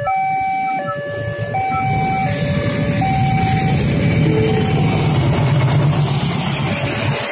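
Railway level-crossing warning alarm sounding an electronic two-tone chime that alternates high and low about every three-quarters of a second. From about two seconds in, the rumble and hiss of a passenger train passing over the crossing grow louder over it.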